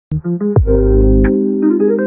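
Electronic background music: sustained keyboard or synth chords over a deep bass, with a falling pitch swoop into the bass about half a second in.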